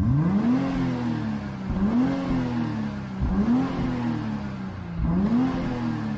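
BMW X6 xDrive engine breathing through a TNEER valved cat-back exhaust in Sport mode, revved in four quick blips while parked; each rev climbs and drops back to idle.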